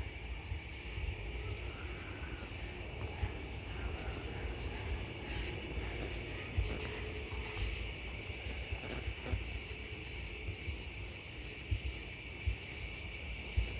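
Crickets and other night insects chirping steadily: a continuous high trill with an even, rapid pulsing above it. Underneath runs a low rumble of handling noise.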